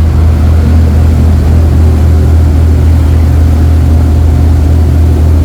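Motor yacht's inboard engines running steadily underway: a loud, even low drone with no change in pitch.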